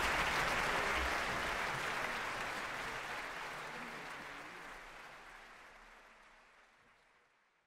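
Theatre audience applauding, the applause fading out steadily to silence near the end.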